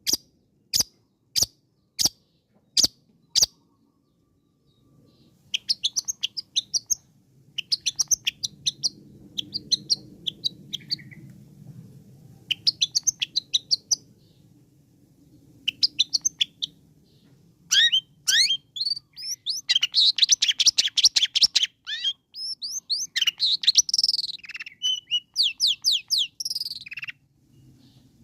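Long-tailed shrike singing. It gives a run of about six sharp calls, evenly spaced at roughly half a second, then a short pause, then high chattering phrases. These build into dense, rapid trills about two-thirds of the way through.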